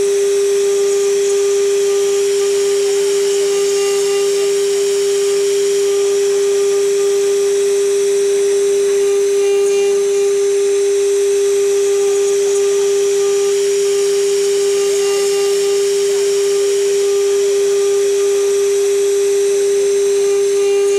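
Small CNC router spindle running with a steady whine while its tapered engraving bit cuts a relief pattern into wood.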